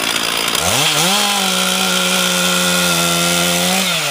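Two-stroke chainsaw revved from idle to full throttle about half a second in, held there steadily for about three seconds, then let fall back toward idle near the end.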